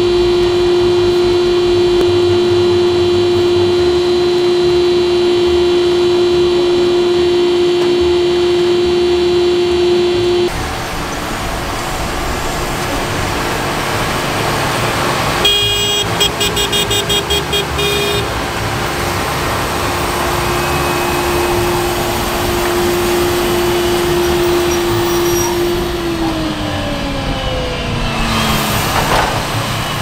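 Fendt tractor pulling a Horsch corn planter: a steady machine whine over engine rumble, changing abruptly about ten seconds in, with a short rapid pulsing about halfway. Near the end the whine drops in pitch as the rig passes close by.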